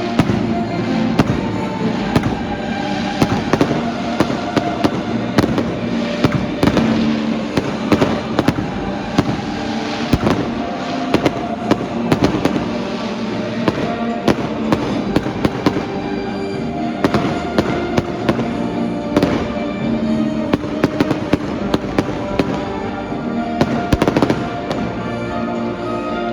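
Fireworks going off in a rapid, continuous barrage of bangs and crackles, several a second, with music playing underneath.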